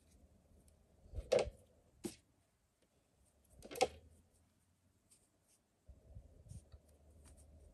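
Quiet handling noise of hands and small crocheted cotton pieces: two brief rustling knocks, about a second in and nearly four seconds in, with a few faint clicks between.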